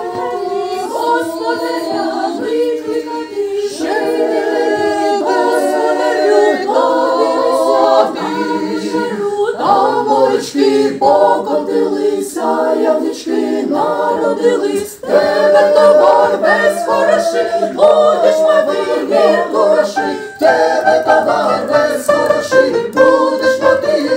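Mixed choir of women's and men's voices singing a cappella in parts, holding chords that change about once a second and growing a little louder about halfway through.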